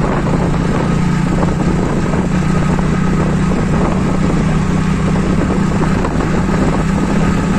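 TVS Radeon's 110cc single-cylinder air-cooled engine running steadily as the motorcycle cruises at economy speed. It gives an even hum with a steady rush of noise over it.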